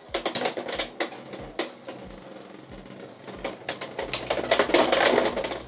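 Beyblade X spinning tops clashing in a plastic stadium: rapid, irregular sharp clicks and hard plastic collisions, densest and loudest between about four and five and a half seconds in, where Cobalt Drake bursts the Gear Needle combo.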